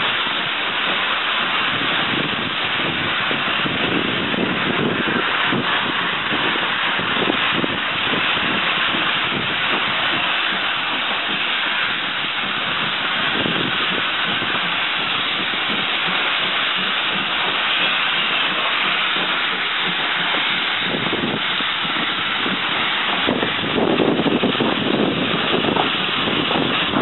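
Steam locomotive GWR 0-6-2 tank engine 5643 pulling out of a station, heard close from its cab side: steam hisses steadily out alongside the engine. The sound grows louder and rougher in the last few seconds.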